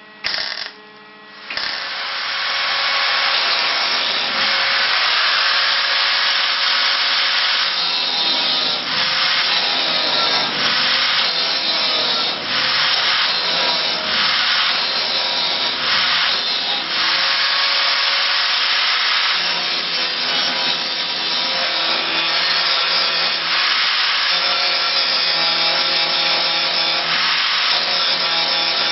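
MIG welder arc crackling as it butt-welds thin steel sheet: two short bursts at the start, then one long continuous run of welding with a few brief dips.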